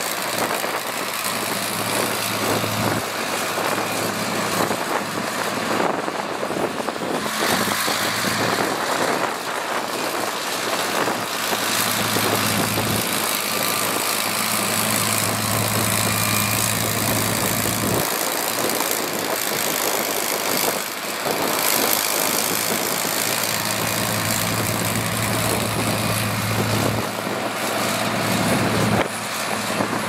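Komatsu D53P crawler bulldozer's diesel engine running steadily as it pushes dirt with its blade, a low hum under the engine noise dropping away and coming back several times.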